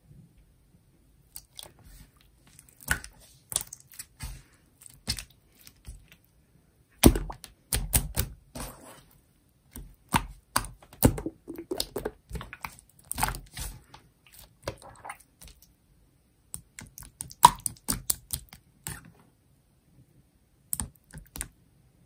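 Clear jelly slime being pressed and squeezed by hand, giving irregular sticky clicks and pops in clusters with short pauses between; the sharpest pops come about seven seconds in and again later on.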